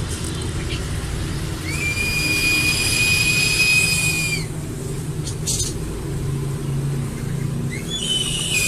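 Eagle giving one long, steady, high call of about three seconds that slides up at the start and dips at the end, with a second call beginning near the end, over a steady low rumble.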